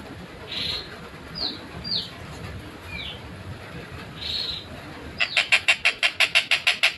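A tengkek buto kingfisher calling: a few short downslurred notes and harsh single calls, then about five seconds in a fast, evenly spaced run of loud harsh notes, about six a second.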